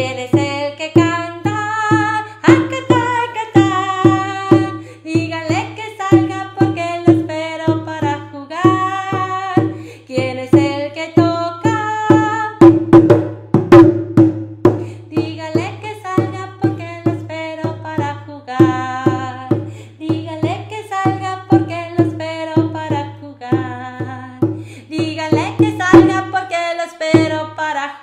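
Children's song playing, a melody over a steady bass, with a small djembe-style hand drum struck along in a steady beat and a quick flurry of strikes about halfway through.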